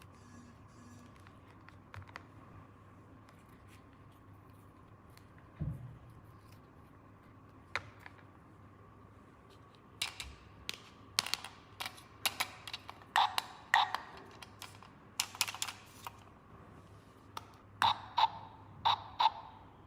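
Small plastic toy parts being handled, clicking and tapping. A few scattered clicks and a dull thump come in the first half; from about halfway there is a run of sharp clicks that settles into a fairly even rhythm near the end.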